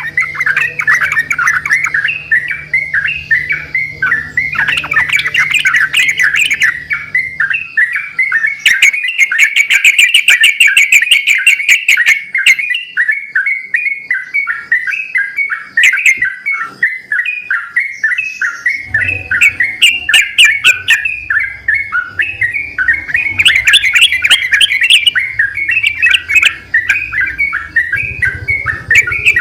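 Yellow-vented bulbuls singing vigorously and answering one another, a continuous run of quick, rapid chattering notes. A faint low hum runs under the song at the start and again from about two-thirds of the way in.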